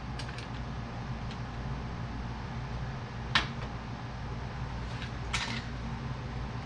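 Hood release cable and hood latch being handled and fitted: a few light clicks and one sharp click about three and a half seconds in, over a steady low hum.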